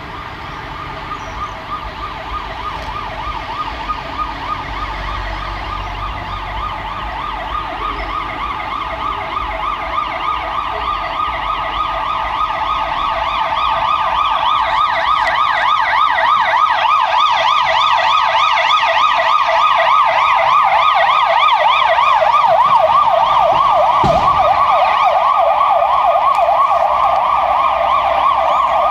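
Siren of a Fiat Ducato fire-service water rescue van on emergency signals: a fast rising-and-falling yelp that grows steadily louder as the van approaches.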